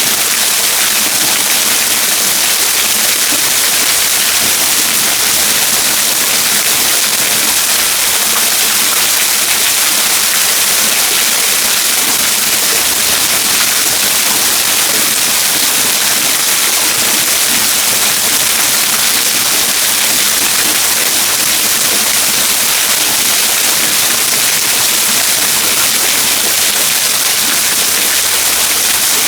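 Waterfall: water pouring and splashing in a steady, unbroken rush, heavy in hiss.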